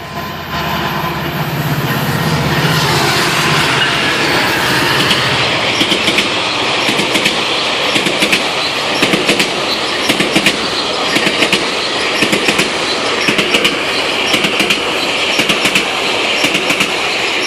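GO Transit express train passing at speed: the MP40PH-3C diesel locomotive's engine is heard first, then the coaches run by with a steady rush of wheel noise and rapid clickety-clack of wheels over rail joints.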